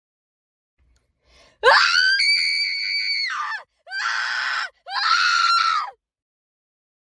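High-pitched human screaming: one long scream that swoops up at the start and drops away at the end, followed by two shorter screams in quick succession.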